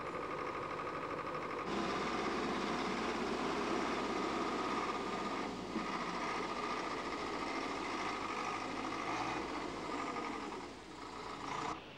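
The diesel engine of a JCB backhoe loader running steadily as it shifts mud and landslide debris. It gets louder a couple of seconds in and falls away just before the end.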